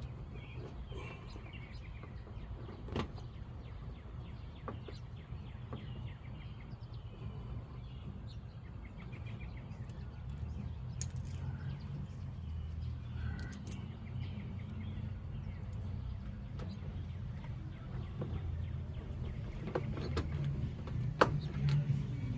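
Low engine rumble of a vehicle pulling up, growing louder through the second half, with a few sharp clicks and faint bird chirps.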